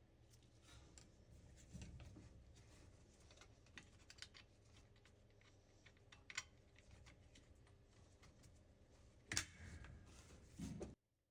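Faint scattered clicks and taps over a low steady hum, with one sharper click about nine seconds in; everything cuts off suddenly just before the end.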